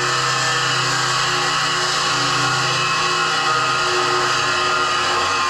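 Angle grinder grinding a seam in steel plate, running steadily with a constant whine over the rasp of the disc on the metal.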